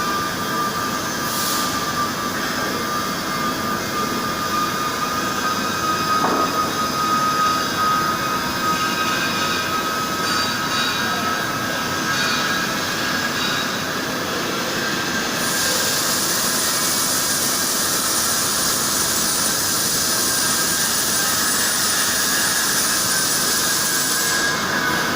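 CNC milling machine running a milling cycle, its spindle giving a steady whine over a mechanical hiss. A loud high hiss comes in a little past halfway and drops away near the end.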